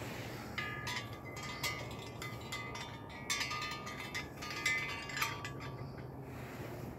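Wind chime tinkling: many light metallic strikes ringing at a few steady pitches, starting about half a second in and dying away about a second before the end.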